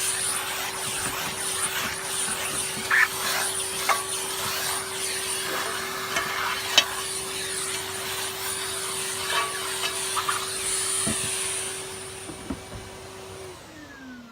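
Numatic Henry canister vacuum cleaner running steadily, with a few sharp knocks as the nozzle hits parts. Near the end it is switched off and the motor winds down with a falling whine.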